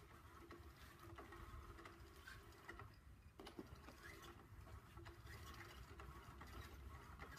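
Faint steady whir of a small motor, from a battery-powered cat toy turning a wand under its fabric cover, with a few light ticks.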